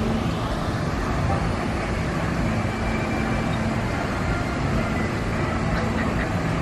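Steady outdoor background noise with a low rumble and no single sound standing out.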